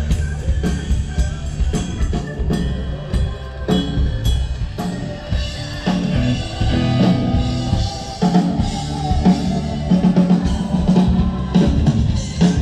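Band music driven by a drum kit, with bass drum, snare and rimshot hits in a steady beat over a bass line.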